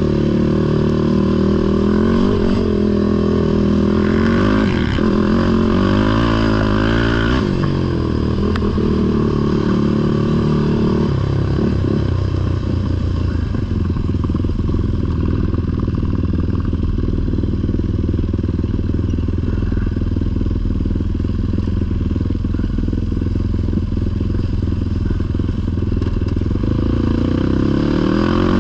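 Sport ATV engine running under way, the revs rising and falling for the first eight seconds or so, then holding a steadier pitch for the rest.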